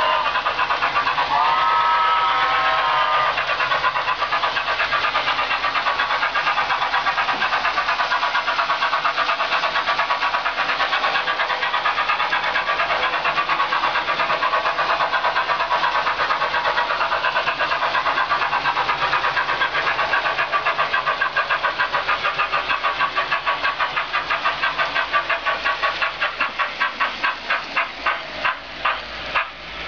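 Märklin BR 10 model steam locomotive's onboard sound decoder: a chime steam whistle blows briefly about a second in, then rapid steam chuffing that gradually slows into separate exhaust beats over the last several seconds as the locomotive slows.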